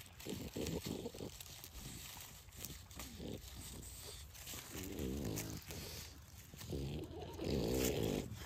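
French bulldog puppy rustling and crackling through dry fallen leaves on grass, with short throaty grunts about five seconds in and a longer, louder one near the end.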